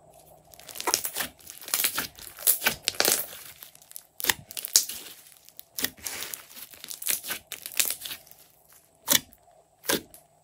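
Thick green slime being stretched, pulled apart and pressed with the fingers, giving a dense run of sticky crackling and tearing sounds. Near the end it thins to a few sharper single pops.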